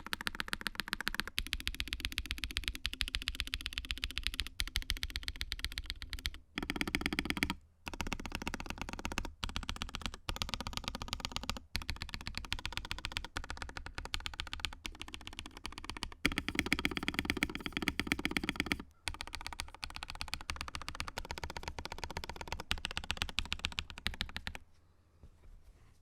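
Fast, continuous typing on a budget 60% mechanical keyboard with KTT Rose linear switches, PBT Cherry-profile keycaps and an FR4 half plate in a plastic case with a gummy O-ring mount: a dense clatter of keystrokes. There are a few brief pauses, and the typing stops about a second and a half before the end.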